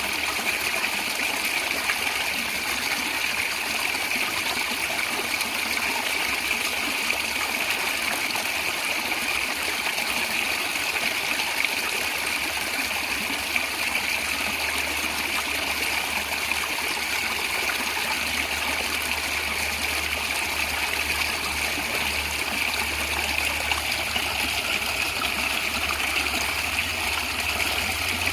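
Natural stream water flowing and gurgling steadily, with a constant rushing and splashing.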